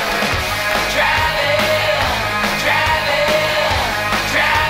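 Rock music with a singing voice and a steady drum beat.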